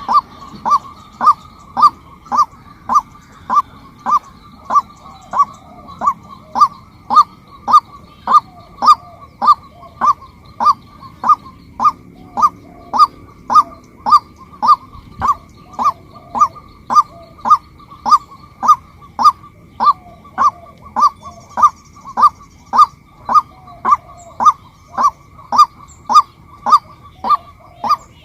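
Female white-breasted waterhen calling one short note over and over in a steady, even rhythm, a little under two calls a second.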